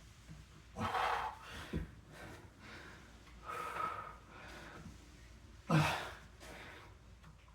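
A man breathing hard and winded after back-to-back bodyweight exercises. Three heavy, gasping breaths come a couple of seconds apart, with quieter breathing between them.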